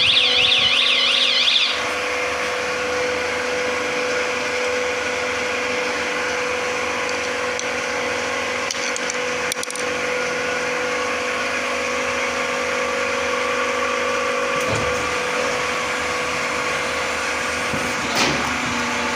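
Vertical injection molding machine running under test: a steady motor-and-pump hum with a constant tone. A warbling electronic alarm sounds for the first couple of seconds and then stops. There are a couple of brief clunks later on.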